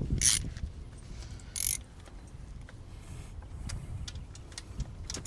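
Hand tools working a 13 mm socket on an idler pulley bolt in the engine bay: scattered metallic clicks and clinks, with two short rasping bursts, one just after the start and one about a second and a half in.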